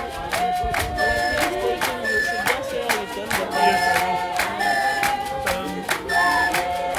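A group of voices singing a traditional song in unison, held notes over a steady beat of hand claps, about three claps a second.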